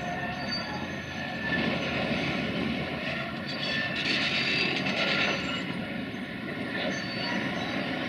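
CASE CX330 crawler excavator's diesel engine running steadily, getting louder for a few seconds in the middle as the machine moves into a new position.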